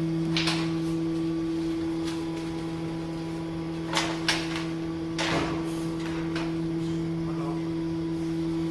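A metal wire rack knocking as a whole roasted lamb is set down and shifted on it: a few short sharp clanks, two close together about four seconds in and another a second later, over a steady low hum.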